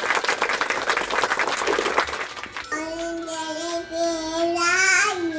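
Rapid hand clapping, an added applause effect, for about two and a half seconds. Then a high, child-like singing voice holds long notes, with a short dip in pitch near the end.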